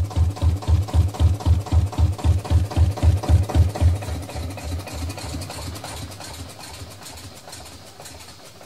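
A small engine sound effect puttering in quick, even beats, about five a second, then fading away over the second half.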